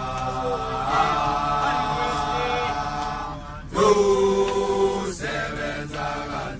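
A group of voices singing a gwijo chant a cappella, holding long notes. The singing dips briefly, then a louder new phrase comes in about four seconds in.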